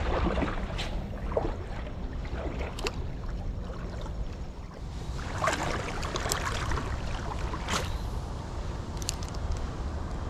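Creek water running in a steady rush, with a handful of short knocks and small splashes scattered through it.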